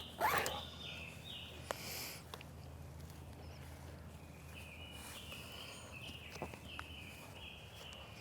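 Faint outdoor quiet with a bird calling in a series of short, high notes, and one louder sweeping call just after the start.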